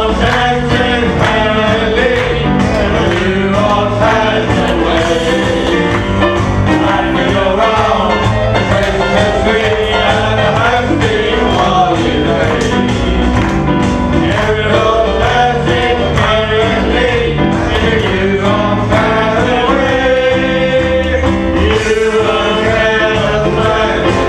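Live band playing a song with singing over a steady accompaniment, in a country-like style.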